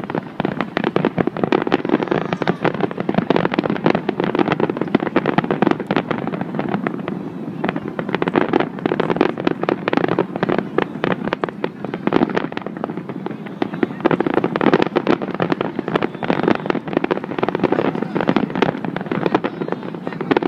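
Large fireworks display: shell bursts and crackling in rapid, overlapping succession, with no pause.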